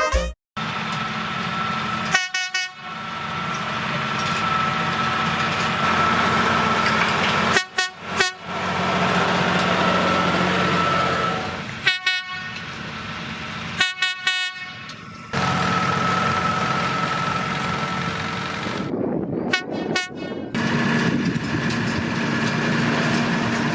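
Tractor-mounted fanfare air horns blowing in four long blasts of several seconds each, over a running tractor engine. The blasts are separated by abrupt breaks.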